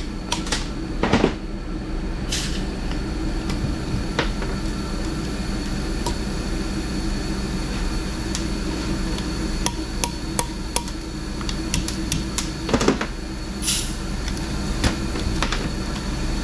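Scattered metallic clicks and knocks from hand tools and valve-train parts being handled while a cylinder head is taken apart, over a steady background hum.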